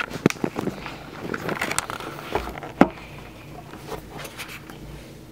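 Handling noise: scattered light clicks and knocks as things are picked up and moved, with one sharper knock about three seconds in, over a steady low hum.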